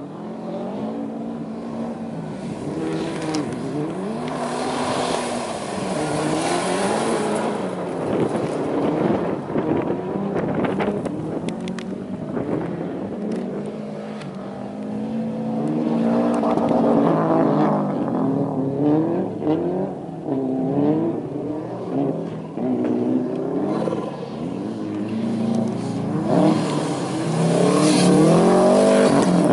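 Turbocharged Subaru Impreza rallycross cars' flat-four engines, revved hard, lifting off and revving again over and over, the pitch climbing and dropping with each gear change and corner. The engine note gets loudest near the end.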